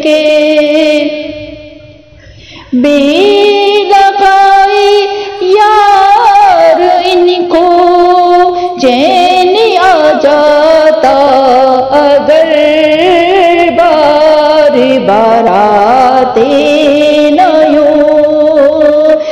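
An Urdu naat, a devotional song in praise of the Prophet, sung by a single voice in long, drawn-out, wavering melodic phrases. The singing breaks off briefly about two seconds in, then resumes.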